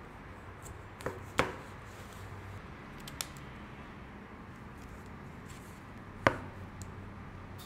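Kitchen knife knocking on a wooden cutting board as it cuts through a plastic tube of egg tofu and slices the soft tofu into rounds: a few separate sharp knocks, the loudest about six seconds in.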